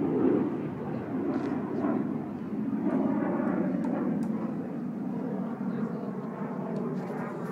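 Jet aircraft engines, a steady low rumble that swells slightly about three seconds in.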